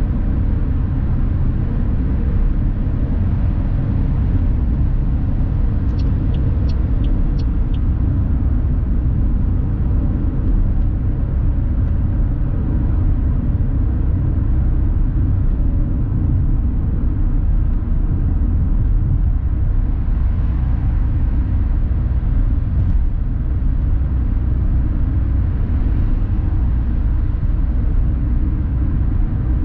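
Steady low rumble of road and engine noise inside the cabin of a 2020 Toyota Aygo with its 1.0-litre three-cylinder engine, cruising at about 90 km/h on a highway. A short run of faint ticks comes about six seconds in.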